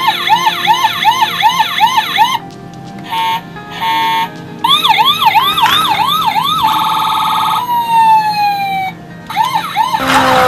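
Toy fire truck's electronic siren sound effects playing from its small speaker. The sounds cycle through a fast yelping siren, a few short beeps, a quick warble and a long falling tone, then the yelp again. Near the end there is a louder noisy burst with a falling tone.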